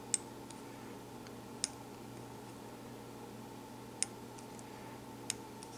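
A few sharp, scattered ticks from thread being wrapped with a bobbin around the head of a fly in the vise, over a faint steady hum.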